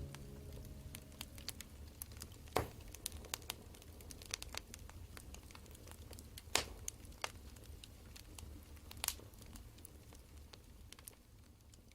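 Wood fire crackling: irregular sharp pops and snaps over a low steady rumble, gradually fading out near the end.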